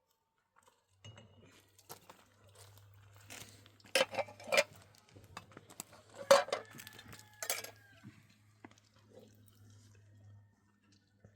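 Dishes and utensils clinking and knocking: scattered light clicks, with four sharper clinks in the middle.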